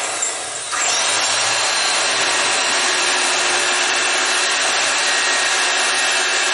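Corded Bosch electric hand drill running steadily, drilling a hole into a welded metal part. It grows louder just under a second in, then holds at one level.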